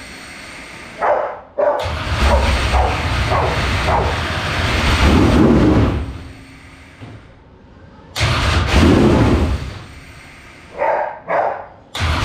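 Freshly built Mullins race engine on its first run, revved hard in throttle bursts: a few seconds of revving, a drop to a low idle, another burst, two short blips near the end, then revving again.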